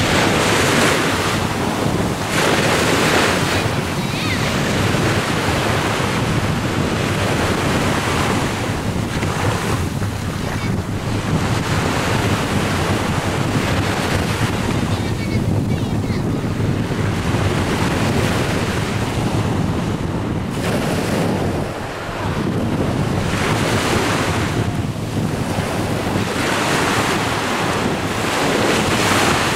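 Small sea waves breaking and washing up onto a sandy beach, the surf swelling and easing every few seconds.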